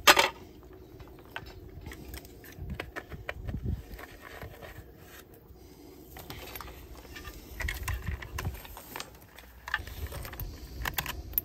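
A sharp click, then scattered light clicks and scrapes as a power cord's plastic strain-relief fitting is pushed into a pool booster pump motor's wiring box and turned in by hand.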